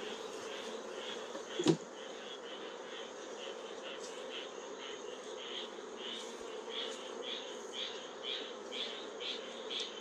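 Steady buzzing of honey bees swarming over an opened hive box as its honey frames are worked. A sharp knock comes just under two seconds in, and a faint high chirping pulses about twice a second.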